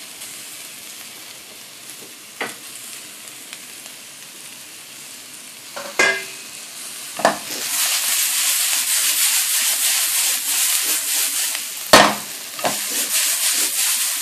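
Carrots, green beans and onions stir-frying in oil in a nonstick wok, with chopped garlic and ginger just added. The steady sizzle turns much louder about halfway through as the pan is stirred, and a few sharp knocks sound against the pan.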